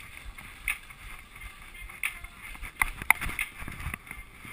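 Skis sliding and swishing through snow during a run, with several short sharp scrapes, the loudest about three seconds in.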